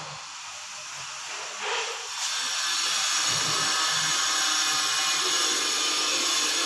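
A power tool starts about two seconds in and then runs steadily with a high-pitched hiss and whine. Before it there are a few low knocks.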